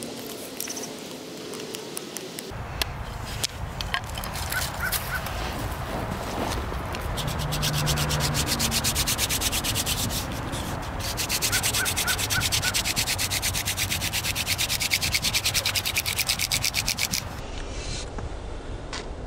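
Wooden hand-drill spindle spun back and forth between the palms in a socket in a wooden hearth board, a fast, rhythmic rasping rub in two long runs with a short break, seating the drill into its hole. Near the start, a stone scraping the wood to cut the starting divot.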